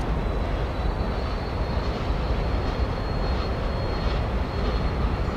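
Steady low rumble of a distant freight train rolling across a long stone arch railroad bridge, with a faint thin high whine starting about a second in.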